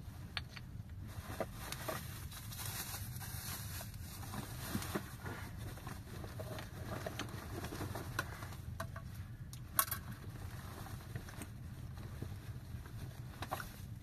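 Plastic bags rustling and crinkling as food is unpacked by hand from a bag, with scattered crackles from a wood fire and a sharp click about ten seconds in.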